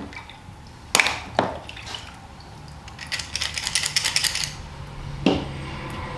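Hard clicks and knocks of the plastic stormproof match cases being handled and opened: two sharp clicks about a second in, a quick run of fine rattling ticks in the middle, and another knock near the end.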